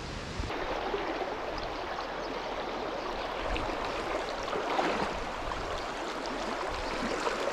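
Shallow stream flowing steadily over rocks in a riffle, with a continuous rushing and burbling of water.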